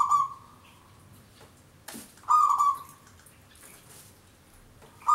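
Zebra dove (perkutut) cooing in short phrases of about half a second each: one is ending at the start, a full one comes a little over two seconds in, and another begins at the very end.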